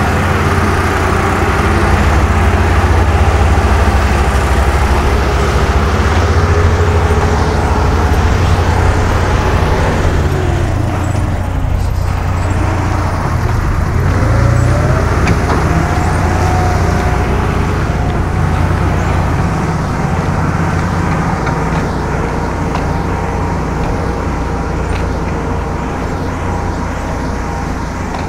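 Diesel engine of a small dump truck carrying an excavator, running under load as it climbs a dirt road. Its pitch dips and climbs back about halfway through as it passes close by.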